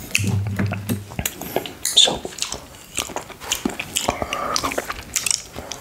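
Tongue licking buckwheat honey off a small glass plate: a run of close wet smacks, clicks and lip sounds. A brief low hum comes near the start.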